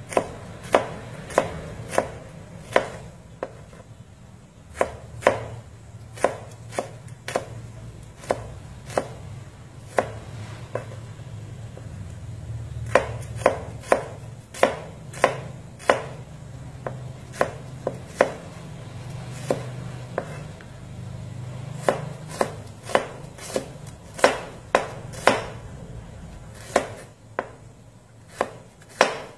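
Kitchen knife slicing shallots on a white plastic cutting board: sharp taps of the blade striking the board, unevenly spaced at about one or two a second.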